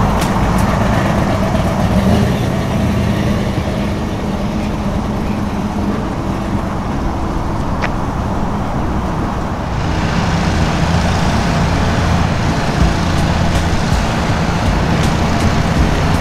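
Engine and exhaust of a 1968 Chevrolet Impala with an LS-swapped 6.2-litre V8, running steadily as the car drives past. The sound changes abruptly about ten seconds in.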